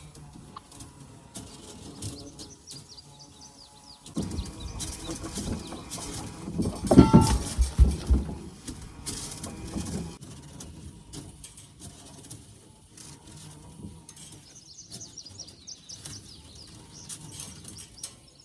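Birds chirping in the background. A loud, rough rustling noise sets in about four seconds in, peaks with a brief tone a few seconds later, then dies away.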